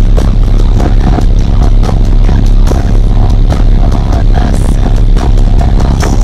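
Bass-heavy music played very loud through car subwoofers in a new enclosure, heard from inside the cabin, driven by an amplifier rated at 1860 W RMS at the clamp; the deep bass is steady and fills the recording to its limit.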